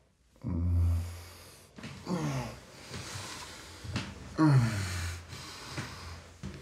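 A man groaning in distress: several drawn-out groans, each falling in pitch, with heavy breaths and gasps between them.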